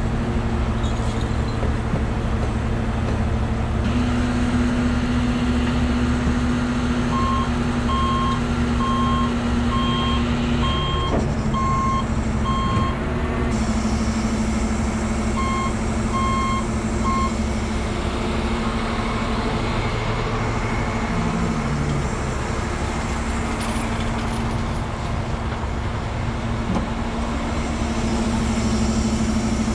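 Heavy rotator tow truck's engine and boom hydraulics running with a steady drone that steps up in pitch about four seconds in as the boom is worked. A backup alarm beeps in even runs of a little over one beep a second, from about seven to thirteen seconds and again briefly around sixteen seconds.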